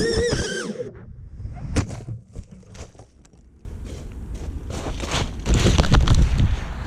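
FPV quadcopter's brushless motors whining and changing pitch, then cutting off suddenly about a second in. Scattered clicks and knocks follow, then a low rumbling noise that builds toward the end.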